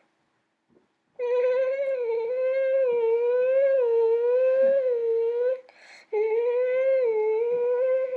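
A child's voice holding a long, wavering, humming tone twice, the first for about four seconds, starting about a second in, the second after a short break.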